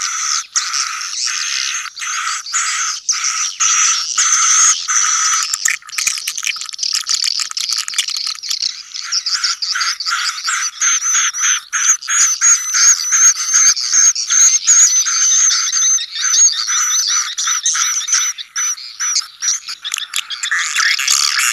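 Edible-nest swiftlet colony call: many swiftlets twittering together, a dense, unbroken stream of rapid clicks and high chirping trills. It is a swiftlet-house lure sound of the 'colony' type, used to draw young swiftlets into a new building.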